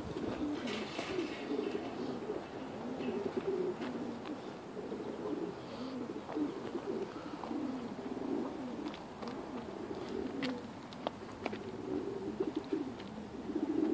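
Domestic pigeons cooing on and off throughout, several low warbling coos overlapping, with a few faint clicks.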